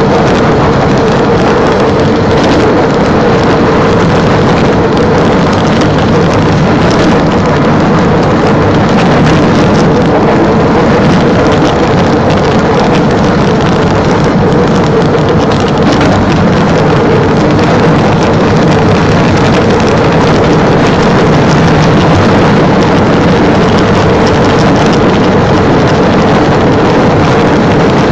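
A motorised rail vehicle running steadily as it rolls along the track: a constant engine hum over rolling noise.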